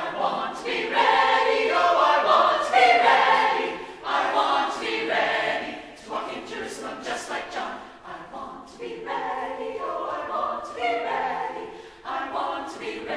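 Chamber choir singing a spiritual a cappella, in sung phrases a few seconds long with short breaks between them.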